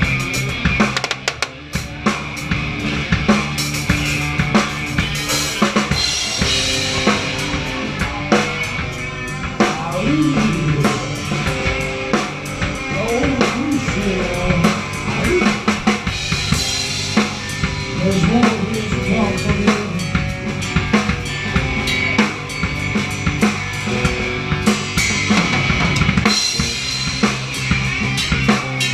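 Live rock band playing, heard up close from the drum kit: bass drum, snare and cymbals are loudest, driving a steady beat over the rest of the band.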